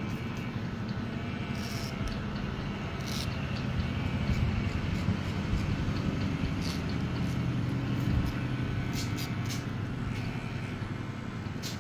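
Electric hair clipper running steadily as it trims the hair at the nape of the neck, a low steady buzz with scattered light clicks.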